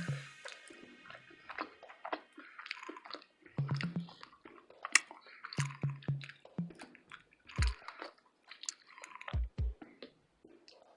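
Close-miked mouth chewing a burrito, with wet, squishy bites and smacks throughout. There are three short low thumps, about two-thirds of the way in and twice in quick succession soon after.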